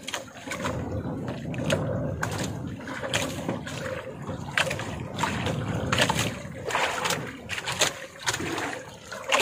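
Sea water slapping and splashing irregularly against the wooden hull and outrigger of a small drifting boat.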